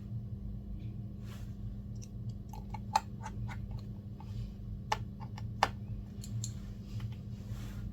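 Scattered small, sharp clicks and taps from handling iPad parts and repair tools, loudest three times in the middle, over a steady low electrical hum.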